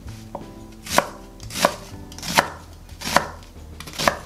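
Chef's knife chopping a white onion into thick slices on a wooden cutting board: six sharp strokes at a steady pace, a little under one a second, the first one softer.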